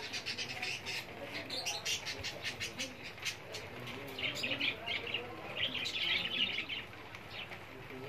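Caged green parakeets chirping and chattering in many quick, short, high calls, busiest in two bouts past the middle.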